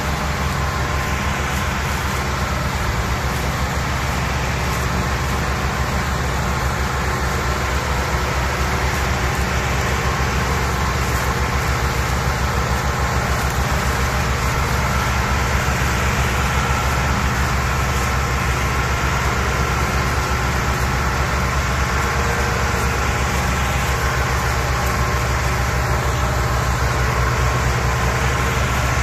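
Ford 3610 tractor's three-cylinder engine running steadily under heavy load as it hauls a fully loaded sugarcane trolley across soft field ground.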